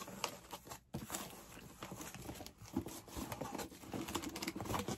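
Cardboard shipper box being handled and pried open by hand: scattered light taps, scrapes and rustles of cardboard.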